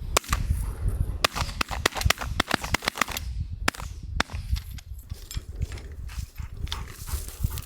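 Many sharp clicks and snaps in quick, irregular succession, thinning out after about four seconds.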